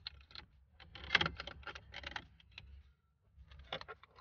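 Plastic dashboard trim of a Mitsubishi Lancer being pressed and worked into place around the hazard-switch panel: a run of short clicks, knocks and scrapes, loudest about a second in, with a few more near the end.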